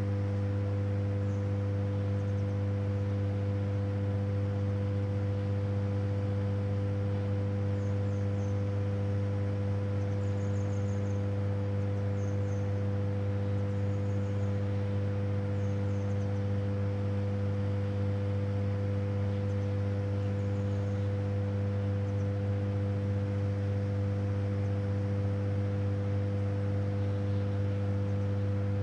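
Steady deep electrical hum of a hydroelectric power station, one low tone with fainter overtones stacked above it, unchanging throughout. A few faint high chirps come and go in the first half.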